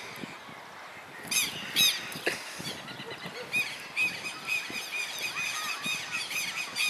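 Southern lapwings (quero-quero) giving shrill, repeated calls: two loud calls early, then a near-continuous run of short calls through the rest.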